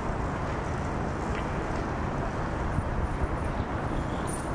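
Steady outdoor background noise, mostly a low rumble, with a couple of faint clicks around the middle.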